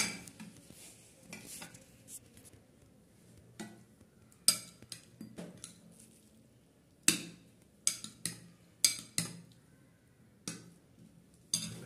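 Plastic serving spoons knocking and scraping against plates as food is dished out: about a dozen sharp, separate clinks and scrapes, most of them in the second half.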